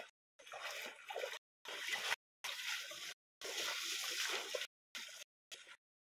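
Water splashing and sloshing as a person wading waist-deep sweeps his arms through a pool. The sound comes in short stretches broken by abrupt dropouts to silence.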